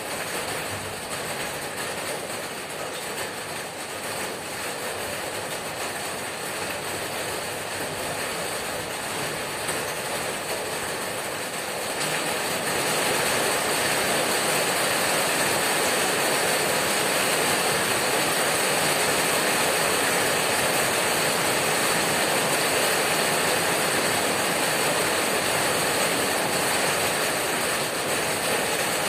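Hammering rain on a corrugated tin roof, a dense, steady patter that gets louder about twelve seconds in and stays at that level.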